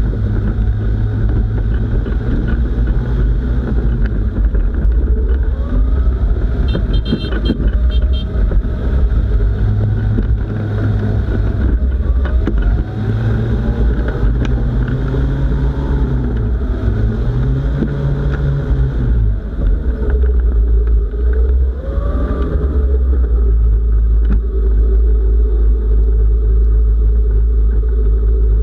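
Microlight trike's engine and pusher propeller running, the pitch rising and falling again and again as the throttle is worked on the ground. From about two-thirds of the way through it settles into a steady, louder drone.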